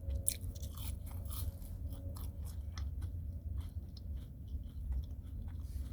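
A person chewing food close to the microphone: many small, irregular wet clicks and crunches, over a steady low hum.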